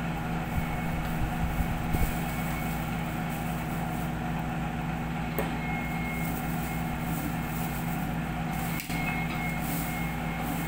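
A steady low mechanical hum, with a faint high whine, and a few soft clicks and rustles of plastic packaging being handled.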